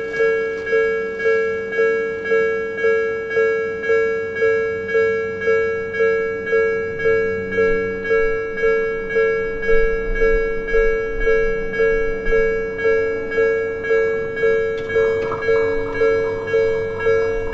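Japanese level-crossing alarm bell ringing in an even, steady dinging, almost two strokes a second, warning of an approaching train. A low rumble joins about halfway through.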